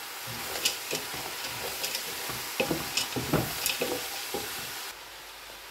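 Wooden spatula stirring mixed vegetables frying in oil in a large granite-coated pot: a steady sizzle with irregular scrapes and knocks of the spatula against the pan. About five seconds in the sound drops to a quieter, steady hiss.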